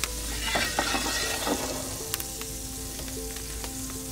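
Butter sizzling and popping in a hot cast iron skillet, melting over the steak fond, with a briefly louder stretch of noise about a second in.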